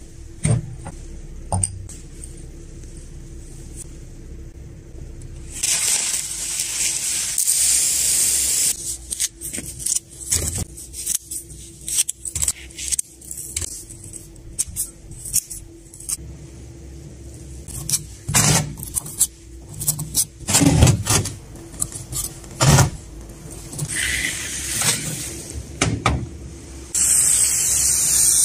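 Close handling of a potting job: a ceramic pot set down, then scissors snipping cushion moss over soil in a run of sharp clicks. Near the end a spray nozzle starts misting water with a steady hiss.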